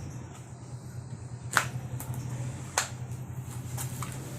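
Two sharp clicks about a second apart, then a few fainter ticks near the end, from handling a phone and its packaging during unboxing, over a steady low hum.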